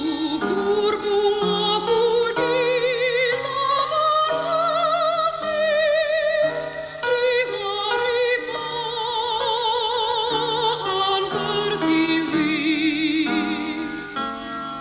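Slow music: a melody with heavy vibrato over held, slowly changing chords.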